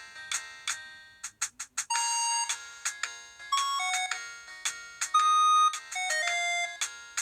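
Huawei G7002 mobile phone playing one of its preloaded ringtones: a synthesized melody of short electronic notes, with a quick run of clicks about a second in.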